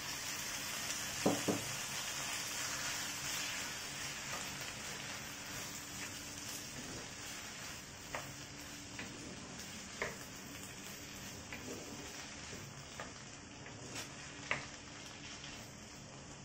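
Chopped tomatoes and shallots sizzling in sesame oil in a clay pot, stirred with a wooden spatula that knocks and scrapes against the pot now and then. The sizzle slowly dies down as the wet tomatoes cool the oil.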